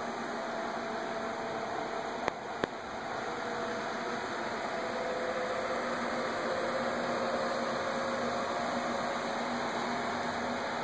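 Cooling fans of a crate-built Litecoin mining rig with AMD Radeon HD 7900-series graphics cards running under mining load: a steady whir of rushing air with faint hum tones that drift slightly in pitch. Two brief clicks sound a little over two seconds in.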